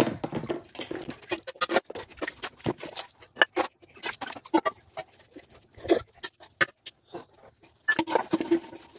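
Steel utensils and lids clinking and knocking together as they are handled and washed by hand, in a quick, irregular run of small clatters.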